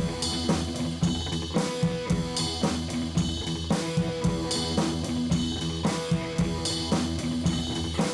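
Background music with a drum kit and guitar, a steady beat of about two strikes a second.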